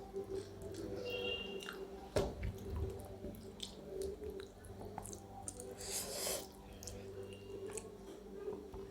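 A person eating with quiet chewing and soft wet clicks and squishes of food, with a short crunchy rustle about six seconds in.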